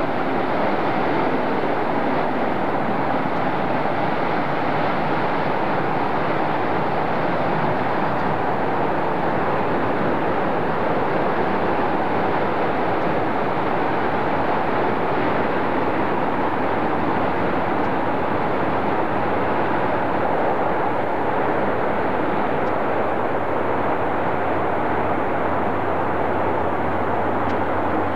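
Rockwell B-1B Lancer's four afterburning turbofan engines at takeoff power with afterburners lit: a loud, steady jet noise as the bomber makes its takeoff roll.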